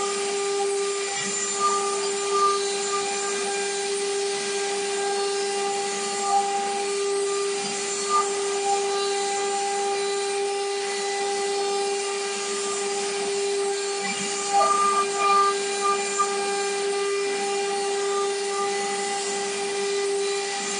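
Water-cooled CNC stone router carving artificial stone: the spindle runs with a steady pitched whine while the cutter grinds through the slab, with a few brief louder spikes as the bit bites harder.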